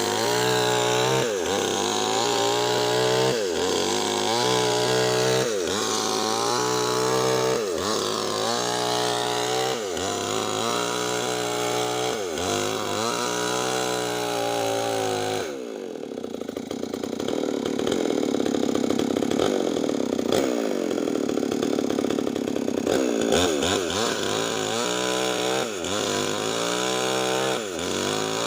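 Two-stroke chainsaw with a 25-inch bar ripping lengthwise through medang timber at high revs, its engine pitch dipping under the load of the cut and recovering about every two seconds. A little past halfway the sound turns duller and steadier for several seconds before the dipping returns.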